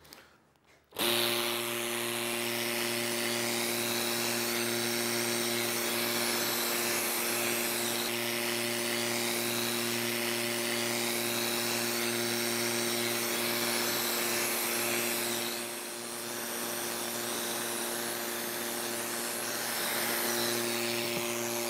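Freshly rebuilt rotary vane air compressor, driven by a Marathon electric motor, switches on about a second in and runs steadily: a motor hum with a loud rush of air through the pump. It starts up freely, the sign that the end-cover bolts are not over-tightened and the vanes are not rubbing on the end plate.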